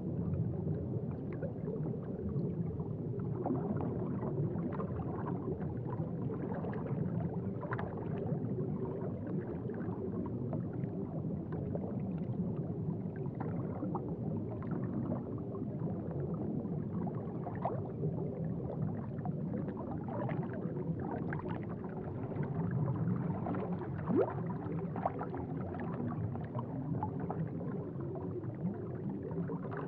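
Aquarium water bubbling and gurgling: a steady low rumble with light pops scattered through it.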